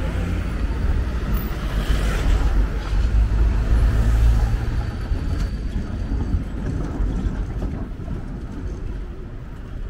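City street traffic at a tram junction. A motor vehicle passes close, its low engine rumble loudest about four seconds in, then the noise fades.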